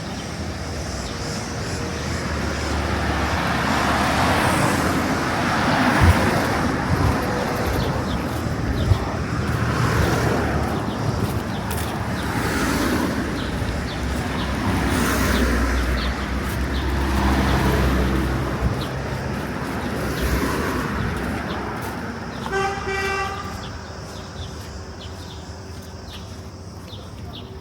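Road traffic: several vehicles pass one after another, each swelling and fading with a low engine rumble. Near the end a vehicle horn toots once, for about a second.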